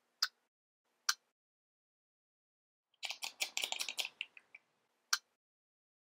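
Cartoon sound effects: two sharp clicks about a second apart, then a quick patter of many clicks and taps lasting about a second and a half, then one more click.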